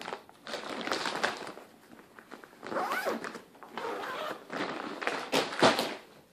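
Clear plastic bag crinkling and rustling as it is handled and lifted, in several bursts with short pauses, and a louder thump near the end.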